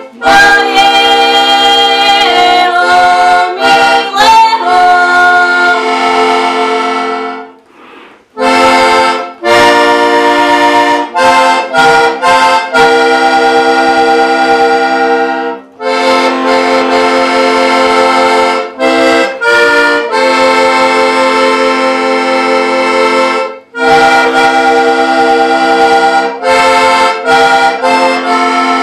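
Diatonic button accordion (heligónka) playing a tune in phrases, its reeds sounding chords under a melody. The music breaks off for about a second roughly eight seconds in, with shorter breaths between later phrases.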